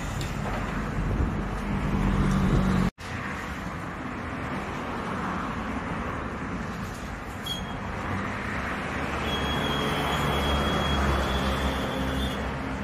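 Steady mechanical background rumble and hiss, broken off for an instant about three seconds in, with a thin high whine in the later part.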